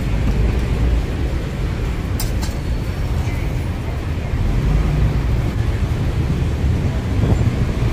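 Steady rumble of city street traffic, with a couple of short sharp clicks a little over two seconds in.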